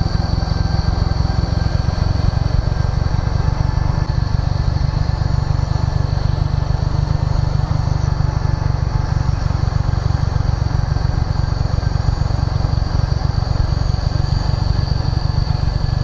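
Motorcycle engine running steadily at cruising speed, heard from the rider's seat as an even low rumble.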